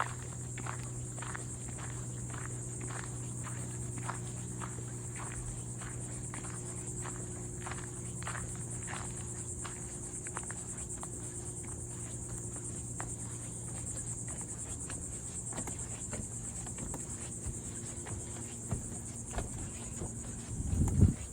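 Steady high-pitched insect chorus, with faint regular clicks through it and a brief low rumble near the end.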